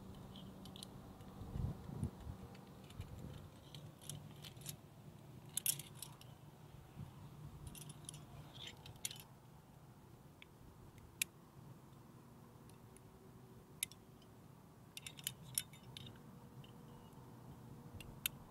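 Metal climbing gear clinking and jingling: carabiners and other trad protection knocking together as a follower unclips and cleans gear from a crack and racks it on the harness. The clinks come faint and scattered, in short clusters with a few single sharp clicks.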